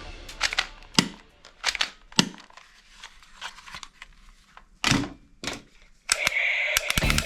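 Irregular sharp clicks and knocks from a plastic toy gun, louder near two and five seconds in. Music starts about six seconds in.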